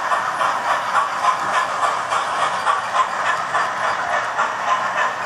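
Model train running past on the layout track: a steady rattle of the wheels and motor, with regular clicking about three or four times a second.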